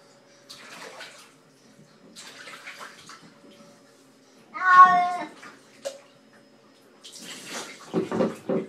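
A cat being bathed meows once, about halfway through, between bursts of splashing water.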